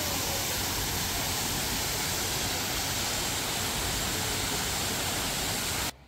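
Waterfall rushing: a steady, loud wash of falling water that cuts off abruptly near the end.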